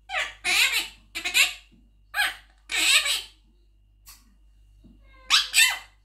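Blue Quaker parrot (monk parakeet) talking in short, scratchy mimicked phrases, "You are baby" among them, in several bursts over the first three seconds, then "thank you" a little after five seconds in.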